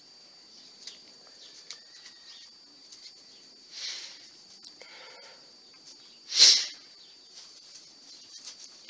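Quiet pigeon-loft ambience: a thin steady high tone, scattered light clicks and scratches, and two brief rustling bursts, the louder one about six and a half seconds in.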